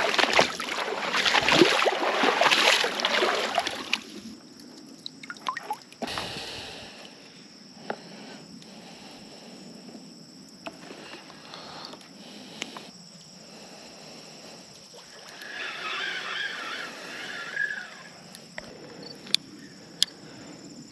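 Wader-clad legs wading through shallow river water, sloshing and splashing for the first few seconds, then a quiet stretch with scattered small clicks.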